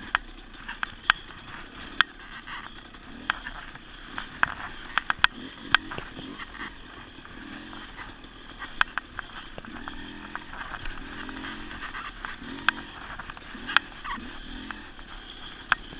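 Dirt bike engine running under changing throttle on a rough trail, its note rising and falling, with frequent sharp knocks and rattles as the bike hits bumps.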